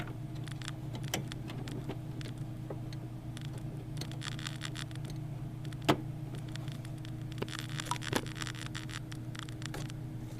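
Scattered clicks and light rattles of wire connectors and plastic parts being handled and unplugged inside a desktop computer case, with one sharp click about six seconds in, over a steady low hum.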